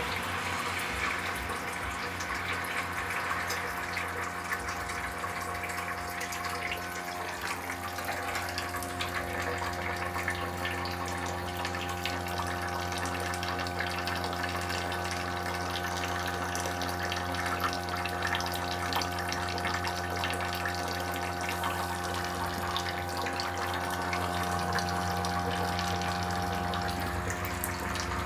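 Haier air conditioner running its defrost cycle: a steady compressor hum under a continuous water-like rushing and hissing.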